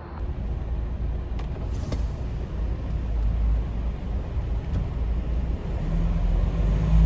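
Semi-truck diesel engine running with a steady low rumble that grows louder toward the end, with a couple of faint clicks early on.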